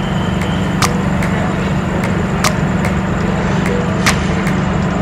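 A steady low machine hum with a sharp click about every one and a half seconds.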